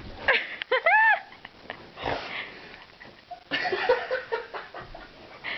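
Pit bull puppy yowling: a few short cries that rise and fall in pitch about a second in, followed by softer breathy, huffing sounds.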